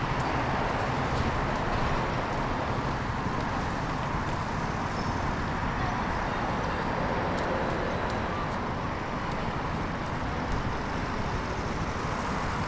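Steady outdoor city ambience, mostly road traffic noise, with no pauses or distinct events.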